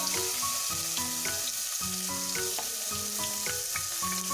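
Chopped onions sizzling as they fry in hot coconut oil in a kadai, a steady hiss. Background music with a melody of held notes plays over it.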